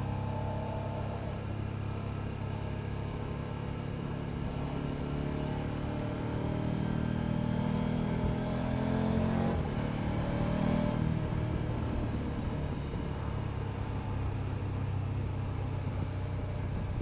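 KTM 1290 Super Adventure's V-twin engine running as the motorcycle is ridden. Its pitch climbs from about five seconds in, dips briefly near the middle, climbs again and then settles back to a steady cruise.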